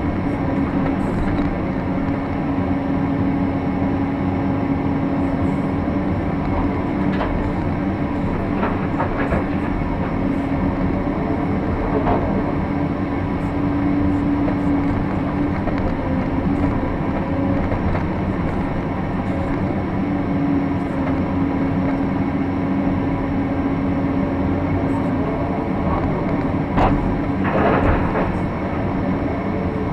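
Cat 349 excavator's diesel engine and hydraulics running steadily under digging load, heard from inside the operator's cab, with a steady hum. A few knocks as the bucket works the trench, and near the end a louder clatter as a bucketful of soil and rock drops into a dump truck's bed.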